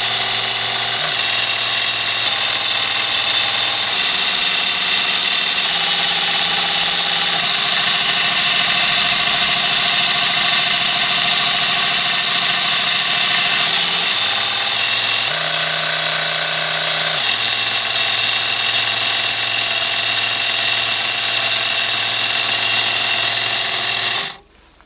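Miniature abrasive belt sander's small 12–24 V DC motor and belt running steadily, its pitch shifting in steps several times. It cuts off abruptly about a second before the end.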